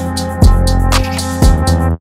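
Background music with a steady drum beat and deep bass, stopping abruptly near the end.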